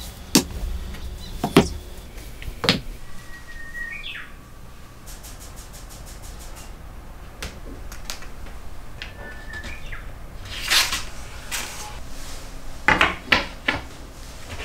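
Plywood boards being handled and set down on a wooden bench: a few sharp knocks and taps spread out, with a cluster of them near the end. A bird chirps briefly twice in the background.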